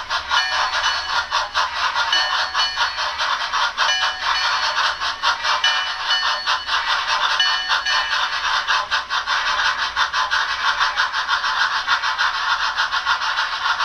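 Tsunami sound decoders in Bachmann On30 model steam locomotives playing fast, even steam chuffing through their small speakers, with a bell-like ringing tone repeating about every second and a half through the first half. The wheels rattle on the track underneath.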